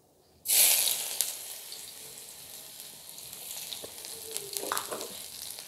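Chopped onion hitting hot oil in a metal karahi: a sudden loud sizzle about half a second in, easing into a steady frying sizzle.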